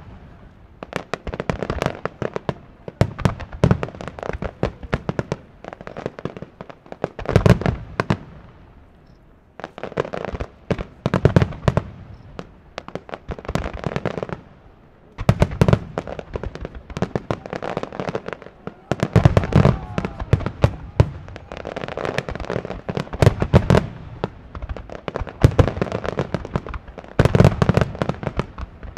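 Aerial fireworks shells bursting in rapid volleys, deep booms mixed with sharp cracks, with brief lulls about nine and fifteen seconds in.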